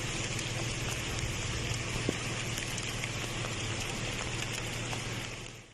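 Heavy rain falling in a steady hiss, with a single brief tick about two seconds in. It fades out at the end.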